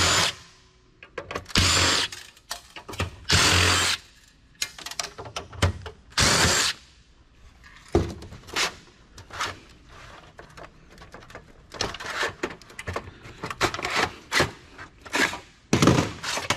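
Cordless drill/driver running in three short bursts while backing out screws from a desktop PC case. It is followed by scattered clicks and knocks of metal parts and screws being handled.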